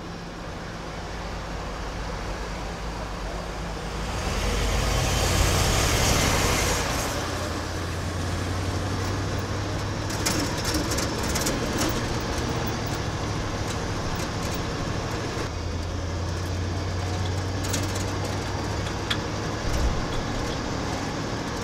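1977 Ford F-250 pickup's engine running while the truck drives, heard from inside the cab with road noise. It gets louder for a few seconds about four seconds in, then settles to a steady cruise.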